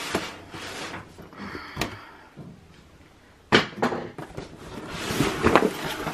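Hands undoing the metal-buckled straps of a cardboard box and opening its lid: small taps and a sharp buckle click about two seconds in, then, after a quiet moment, cardboard scraping and paper rustling as the lid comes up.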